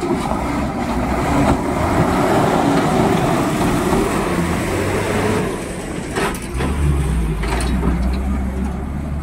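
An Ashok Leyland lorry's diesel engine running under load as the truck drives off a ferry ramp and up the riverbank. The low engine note grows louder about six and a half seconds in, and two short sharp noises come at about six and seven and a half seconds.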